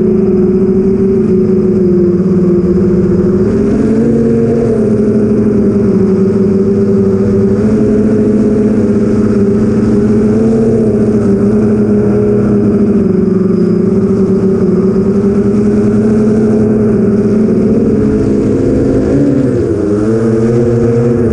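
Brushless motors of an 8-inch FPV quadcopter (BrotherHobby Avenger 2812 1115kv spinning Master Airscrew 8045 props) running in flight, heard through the onboard camera: a steady, loud hum whose pitch wavers with throttle and dips briefly near the end.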